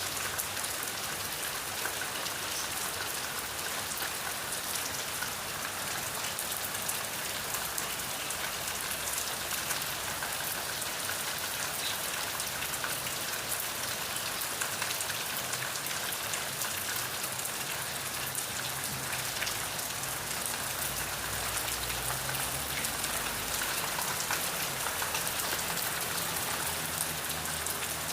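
Steady rain falling, a constant even hiss with many fine drop ticks.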